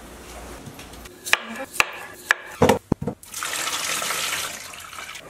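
A few sharp knocks and scrapes as a metal plate scoops flour out of a plastic tub, then water poured from a bowl over cut potatoes in a steel pot, a steady splashing pour of about two seconds.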